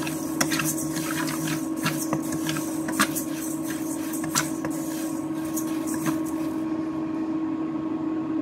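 Roasted moong dal stirred in a steel pot with a spatula: grains scraping and rattling, with sharp clicks of the spatula against the pan, stopping about six and a half seconds in. A steady electrical hum runs underneath.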